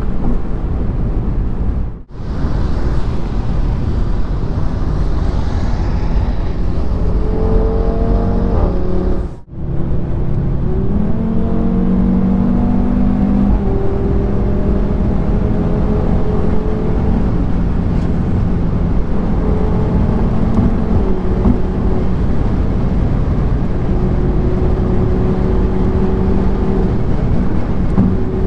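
Audi RS3's five-cylinder engine heard from inside the cabin at motorway speed, with heavy wind and road noise. The engine note rises in pitch for several seconds as the car accelerates, then settles into a steady drone. Two brief dropouts break the sound.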